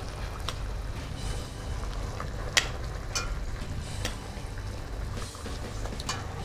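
A metal spoon clinking now and then against a stainless steel pot as it turns stewed chicken pieces in their broth, a few sharp clinks with the loudest about two and a half seconds in, over a low steady hum.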